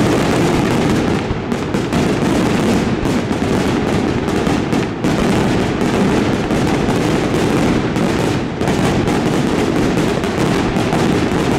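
Daytime fireworks: aerial shells bursting overhead in a dense, continuous barrage of bangs and crackles, so rapid that the reports run together, with brief lulls about five seconds in and again a few seconds later.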